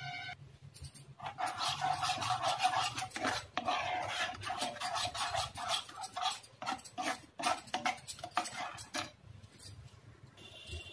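A spoon scraping and stirring khoya around a nonstick frying pan in quick, rapid strokes. The fresh, soft khoya is being dry-roasted to firm it up.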